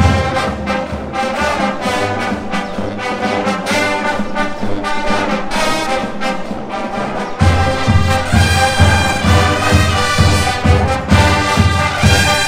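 Marching band playing: a full brass section of trombones and trumpets over the drumline. The deep drum beat drops back for the first seven seconds or so, then comes back in strongly, about two beats a second.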